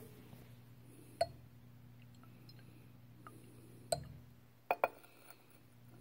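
A glass Erlenmeyer flask clinking faintly as it is swirled by hand and set back down on the bench: four sharp clicks, one about a second in, one near four seconds and a close pair just after. A steady low hum runs underneath.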